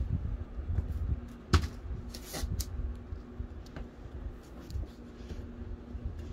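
Rumble and handling noise from a hand-held phone being moved about a small room, over a steady low hum, with a few sharp knocks or clicks, the loudest about a second and a half in.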